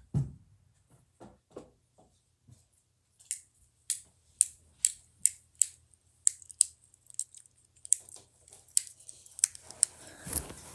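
A low thump at the start, then a run of sharp, high clicks, about two a second, from a small object being worked in the hands, with soft rustling near the end.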